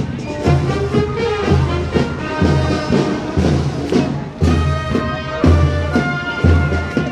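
Marching band playing, a brass melody over a heavy bass beat about once a second.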